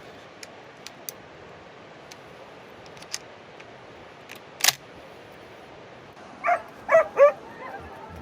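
Hunting dog barking: three sharp barks in quick succession about six and a half seconds in, trailing into fainter yelps. A single sharp crack comes a couple of seconds before them, over light clicking.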